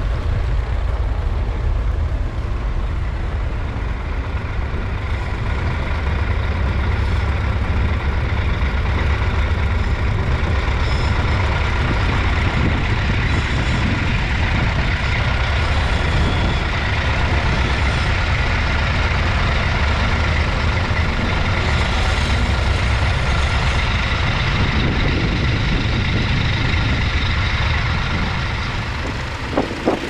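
Vintage International tractor engine running steadily under load as it pulls a mounted plough through stubble.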